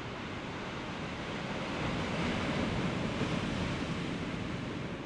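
Sea surf washing against a rocky shore, one swell building about two seconds in and easing off near the end.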